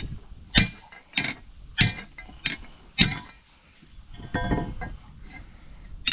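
Claw hammer striking a metal strip laid over a cast-iron cobbler's shoe last, bending it into shape. Five sharp, clinking blows a little over half a second apart, then a brief ringing metallic sound about four and a half seconds in, and another blow at the very end.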